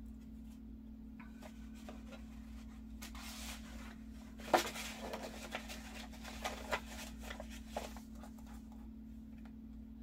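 Soft paper rustling as a folded card in a handmade paper journal is opened, handled and folded back by hand, with one sharp tap about four and a half seconds in and a few lighter ticks after it.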